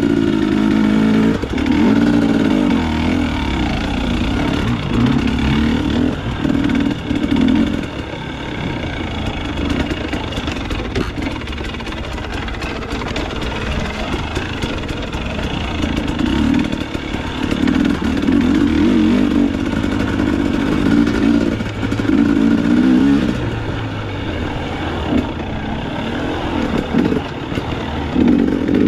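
Dirt bike engine running throughout, revving up in repeated bursts as the throttle is opened and shut, with quieter stretches between, as in slow technical trail riding.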